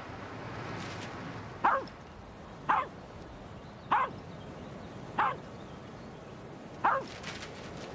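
A dog barking: five short, sharp yapping barks about a second apart.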